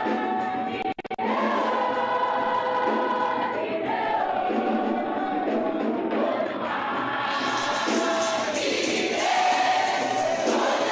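Choir singing a gospel worship song with music behind it, held notes sliding between pitches; the sound drops out for an instant about a second in.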